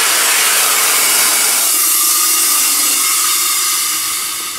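Compressed-air avalanche airbag (RAS removable airbag system) inflating: a loud, steady rush of escaping air that eases off near the end as the bag fills.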